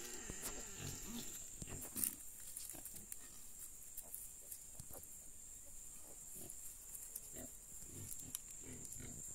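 Newborn piglets giving short, soft grunts again and again as they shuffle over dry leaves and straw, with a sharper rustle about two seconds in. A steady high-pitched tone runs underneath.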